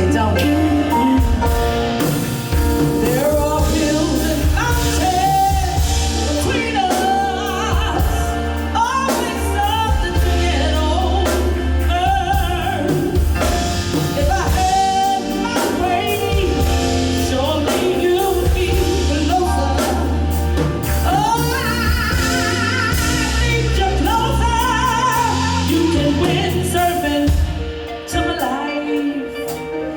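Live band playing a slow soul ballad, with a singer's wordless runs and held notes sliding over steady bass. The music drops back briefly near the end.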